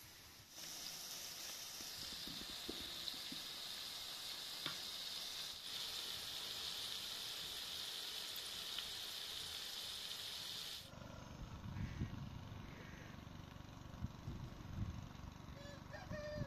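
Chicken hearts and sliced green peppers sizzling in oil in a frying pan, a steady hiss. About eleven seconds in it gives way to wind rumbling on the microphone outdoors, with a few short bird chirps near the end.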